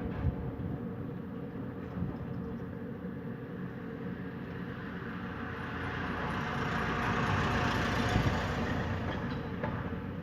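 Night wind with a steady low rumble, swelling into a broad rush a little past halfway and fading near the end.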